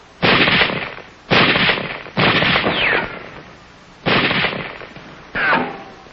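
Five single gunshots, rifle fire spaced unevenly about a second apart, each with a short echoing tail. After two of the shots comes a falling whine.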